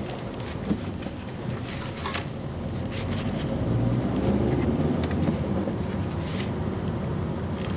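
Car interior noise while driving: steady engine and road rumble, growing louder in the middle, with a few faint clicks.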